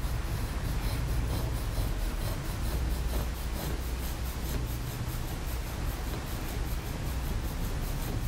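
Stainless steel massage plate (a Graston-style scraping tool) rubbing and scraping along bare skin of the shin in repeated strokes.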